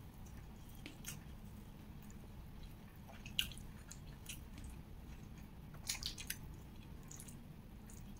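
Quiet, close chewing: a few soft, wet mouth clicks spaced a second or two apart, with a small cluster of them about two-thirds of the way through, as a mouthful of stir-fried bell pepper with fish is chewed.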